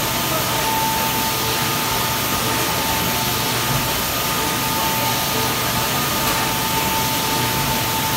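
Steady machine noise of a running ready-meal production line with a servo dosing filler and conveyor: an even hiss with a constant mid-pitched tone.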